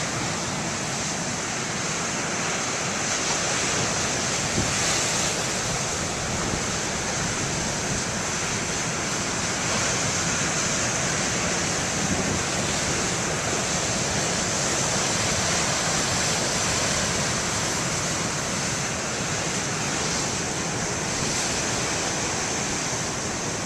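Heavy ocean surf crashing and washing against a rocky shore, a steady roar that swells and eases a little, with some wind on the microphone.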